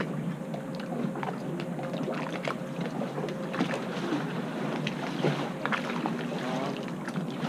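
Water lapping against moored motorboats and a wooden dock: a steady rush with many small irregular slaps and knocks.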